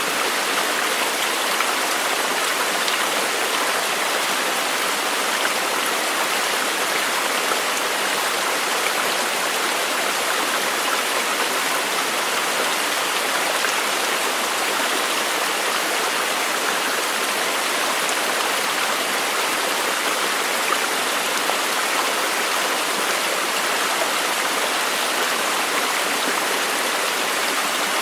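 Flowing water making a steady, even rushing sound with no change in level.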